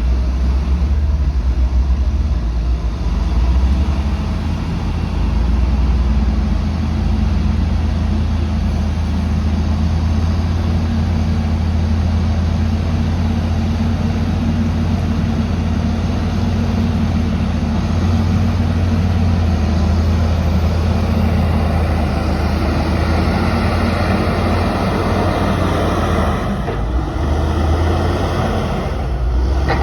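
Caterpillar 525D skidder's diesel engine running under heavy load while dragging a large garapeira log, a steady deep drone. About two-thirds of the way through it gets harsher, with more high-pitched noise for a few seconds.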